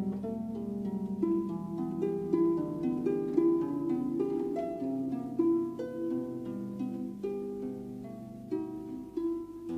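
Instrumental background music: a run of quick plucked notes over held lower tones.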